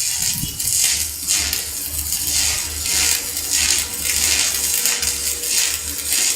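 Electric stick (electrode) welding arc, crackling steadily and unevenly, with a low hum underneath.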